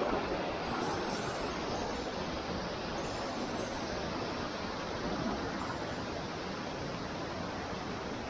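Steady rush of flowing water in the canyon.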